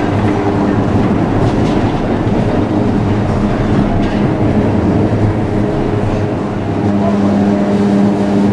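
Historic 2800-series electric tram running along street track, heard from the driver's cab: a steady rumble of wheels on rails with the humming of the traction motors. The hum grows stronger about seven seconds in.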